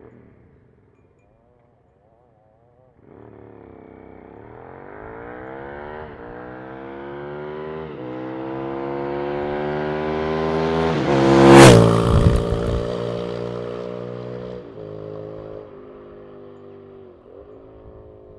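Suzuki SV650S V-twin through a Laser Duo-Tech titanium slip-on exhaust, approaching under acceleration and climbing in pitch through the gear changes. It passes close about two-thirds of the way in, loudest there with a quick drop in pitch, then fades away, still changing gear.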